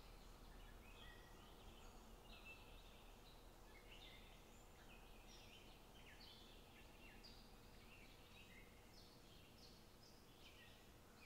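Near silence, with many faint, quick high chirps throughout.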